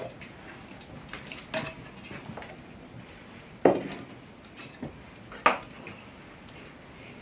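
Crockery and a tin cup being handled on a wooden kitchen table: several knocks and clinks, the loudest about three and a half seconds in and a ringing clink about five and a half seconds in.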